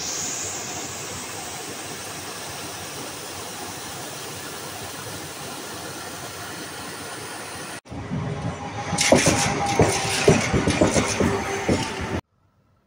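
Water rushing steadily through an open weir sluice gate. After about eight seconds it cuts off sharply to a louder clattering with many sharp knocks and some ringing tones, which stops abruptly about four seconds later.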